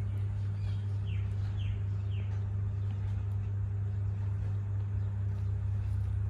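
A steady low mechanical hum, with three short, high, falling chirps from a small animal or bird between about one and two and a half seconds in.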